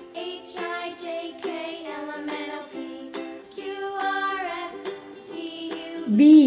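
Light background music for children: a plucked-string tune, like a ukulele, playing a simple melody of short held notes.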